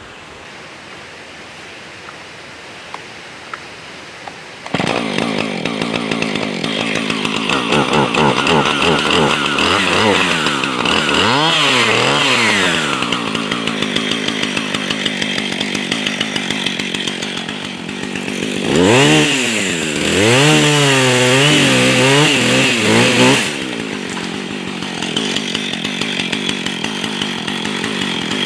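Husqvarna 445 two-stroke chainsaw running, coming in suddenly about five seconds in. Its engine pitch sags and recovers twice as it bogs down cutting into small trees.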